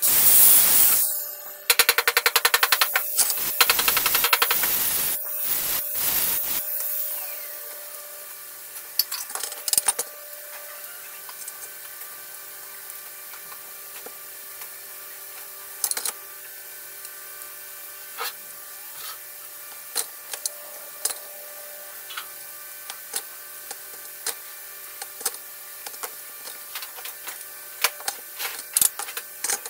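Workshop tool noise: a loud hissing burst, then a few seconds of rapid buzzing ticks. After that comes a steady faint hum with scattered taps and clicks.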